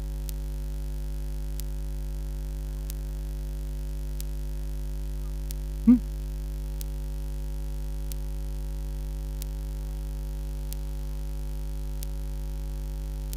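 Steady electrical mains hum with a stack of overtones, from the sound system or recording chain. Faint regular ticks come about every second and a quarter, and a single brief, louder sound about six seconds in.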